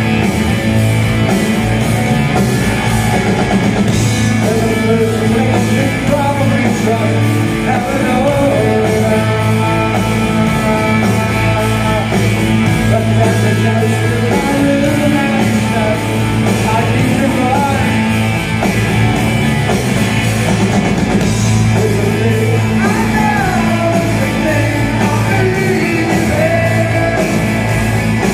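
Live rock band playing: electric guitars, bass and drums, with a male lead vocal singing over them.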